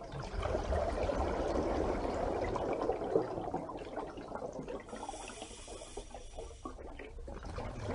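Steady rushing, bubbling water, quieter for a couple of seconds past the middle and swelling again near the end.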